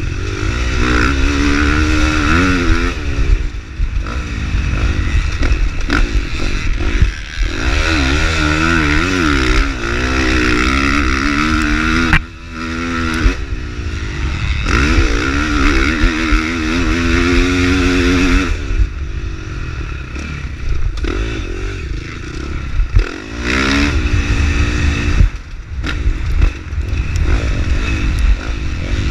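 450cc four-stroke motocross bike engine revving up and falling back again and again as the rider gets on and off the throttle, with a brief drop in the engine about twelve seconds in. Sharp knocks cut through now and then.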